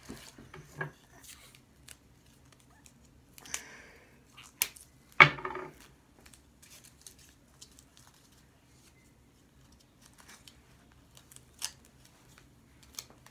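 Scattered clicks, snips and rustles of hands working tape onto a cardboard piece on a baseball, with one louder sharp knock about five seconds in.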